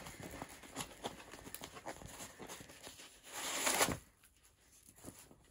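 Rolled diamond painting canvas being unrolled and laid flat: the stiff sheet crackles and rustles, with a louder swish about three and a half seconds in.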